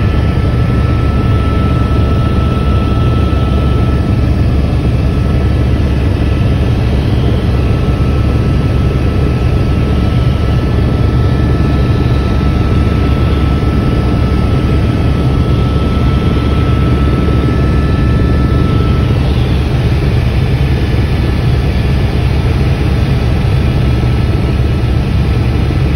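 Helicopter in flight heard from inside the cabin: a loud, steady drone of rotor and engine, heaviest in the low end. A thin steady whine runs through it and fades out about three-quarters of the way in.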